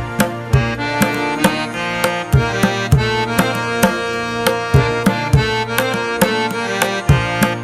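Background music with a steady hand-drum beat of about two strokes a second under sustained melodic notes.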